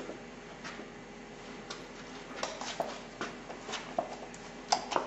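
Irregular light clicks and taps of high-heeled shoes on a hard floor with some shuffling, as a woman turns and steps; the louder clicks come near the end.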